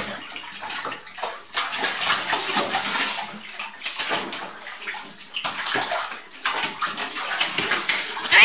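Bathtub water splashing and sloshing as a cat paddles through it and scrambles up over the tub's rim, in uneven splashes throughout.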